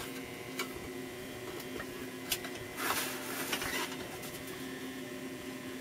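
Steady faint hum with a few light clicks, and a brief scraping shuffle about three seconds in as the copper chassis plate is handled and turned on cardboard.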